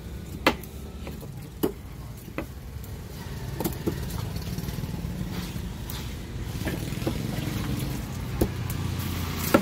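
Large fish knife knocking and scraping on a wooden chopping block: scattered sharp knocks a second or more apart, over a steady low rumble.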